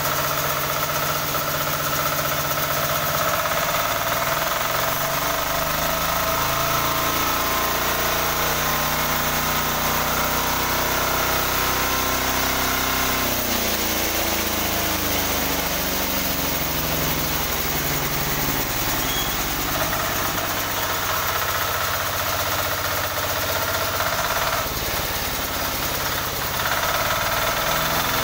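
An 18 hp diesel engine running a sawmill on a test run, its note shifting up and down in pitch several times.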